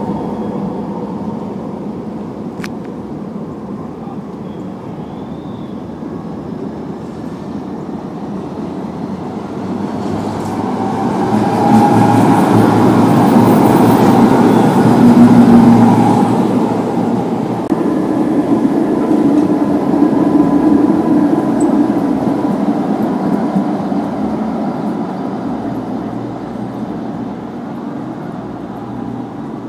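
Electric street trams passing close on the street track. The running noise builds from about a third of the way in, is loudest around the middle with a few steady tones over the rumble, and fades away toward the end.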